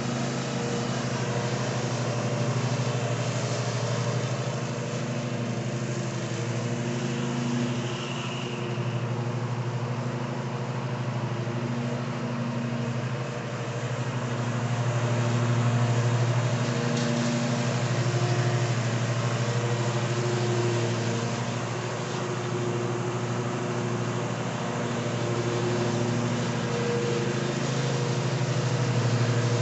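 Ariens Ikon XD 52-inch zero-turn mower running steadily while cutting grass, a constant engine hum that swells and fades a little as the mower turns and moves nearer and farther.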